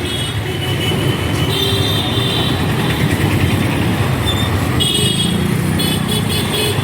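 Busy street traffic: vehicle engines running steadily, with a few short, high-pitched horn toots, one about a second and a half in and others near the end.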